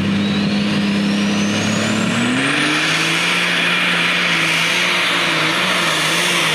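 Super stock pulling tractor's turbocharged engine running loud and steady, then revving higher about two seconds in as it launches and starts pulling the sled. A high turbo whine rises in pitch through the first few seconds.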